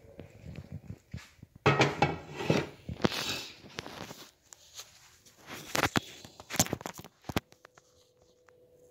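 Handling noise from a phone being picked up, moved about and propped up on a counter: rubbing and rustling against the microphone, loudest a couple of seconds in, then several sharp knocks and clicks as it is set down. A faint steady hum follows near the end.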